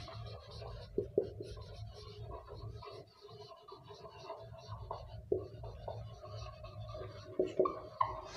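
A marker pen writing on a board: a run of scratchy strokes with a few sharp taps, the loudest about a second in and again near the end.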